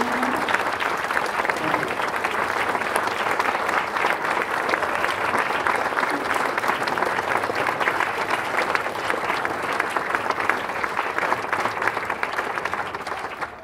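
Audience applauding: dense, steady clapping from a large standing crowd that dies away at the very end.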